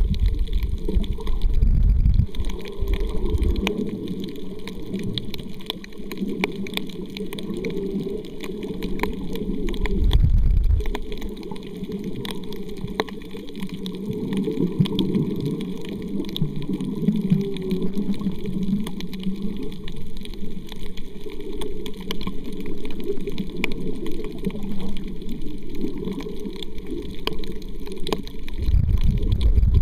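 Muffled underwater water noise picked up by a camera held below the surface on a reef: a steady low rumble of moving water with scattered faint clicks. Louder low surges come near the start, around the middle and again near the end.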